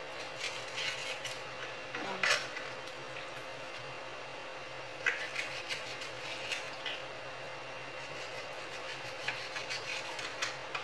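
Knife cutting raw salmon into pieces on a cutting board: scattered light taps and scrapes against the board, with a few sharper knocks about two and five seconds in.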